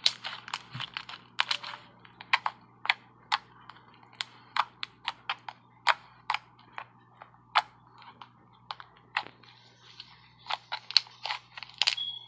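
Fluffy slime squeezed, folded and poked by hand, giving sharp, irregular clicks and pops, a few a second.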